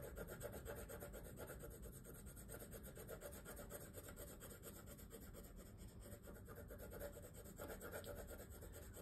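Orange colored pencil scribbling back and forth on a paper worksheet while coloring in a leaf: a faint, rapid scratching of quick strokes, a little louder near the start and near the end.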